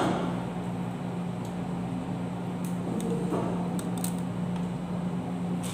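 Steady appliance hum of shop cooling machinery, with a few faint light clicks.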